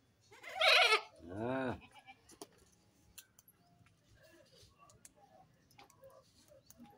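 A goat bleats twice in quick succession: a loud, high call followed by a lower one whose pitch rises and falls. A few faint clicks follow.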